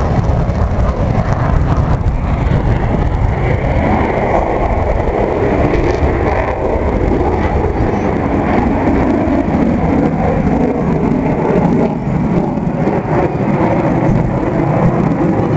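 F-16 fighter jet's engine roar, steady and loud as the jet flies a pass, with a higher whine rising over the roar about two seconds in and fading out by six seconds.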